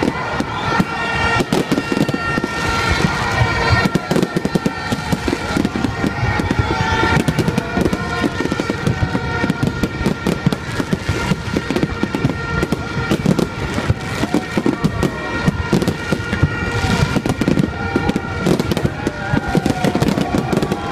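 A fireworks display bursting overhead: a continuous dense barrage of overlapping bangs and crackles with no break.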